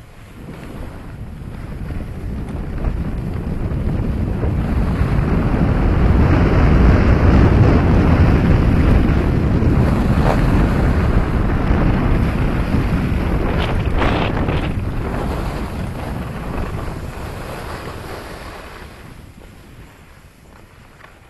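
Wind rushing over a 360° camera's microphone as a skier runs downhill, with the hiss of skis on packed snow. It builds over the first few seconds, is loudest through the middle with a few short crackles, and dies away near the end as the skier slows.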